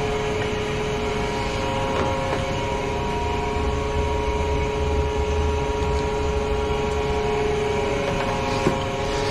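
Steady machinery hum with several held tones and a low drone, unchanging throughout, with a faint knock or two from handling.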